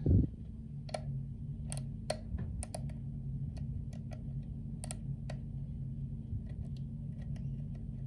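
A hook pick working the pins of an oval pin-tumbler lock cylinder under tension: a run of small sharp metallic clicks and ticks, thickest in the first five seconds and fainter after. The clicks are the picker feeling pins lift and set. A steady low hum runs underneath.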